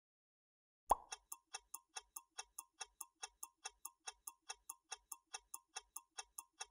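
Clock-ticking countdown sound effect: a sharper click about a second in, then steady, even ticks at about four to five a second.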